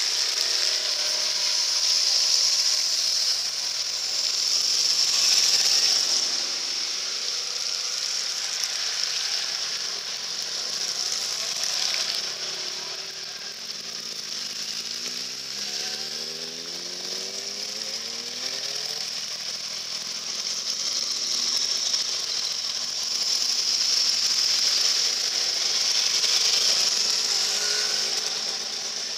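Motorcycles riding one after another through a shallow ford: tyres splashing through the water while their engines run and rise in pitch as they pull through. The sound swells and fades as each bike passes.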